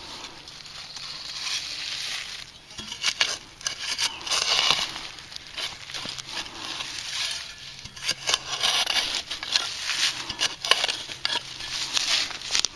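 Digging into soil to recover a metal detector target: irregular crunching and scraping of dirt, with sharp little clicks and crackles throughout.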